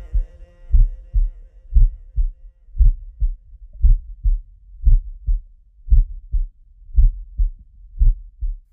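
A heartbeat sound effect in the soundtrack: deep double thumps, about one pair a second. A held tone left over from the song fades out over the first two seconds, and the thumps stop abruptly at the end.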